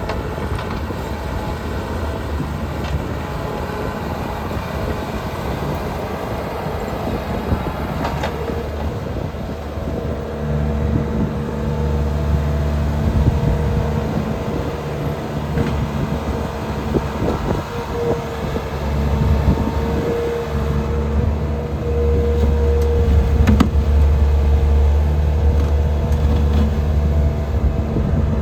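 2014 Bobcat T630 tracked skid steer's diesel engine running steadily, growing louder and steadier about ten seconds in and louder again past the twenty-second mark.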